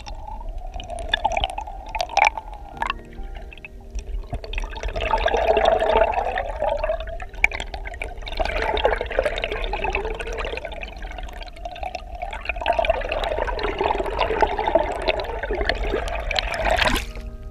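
Canoe paddle strokes heard underwater: about three muffled rushing, gurgling surges of water as the blade sweeps through, over a steady low rumble, with a brief loud crackle near the end.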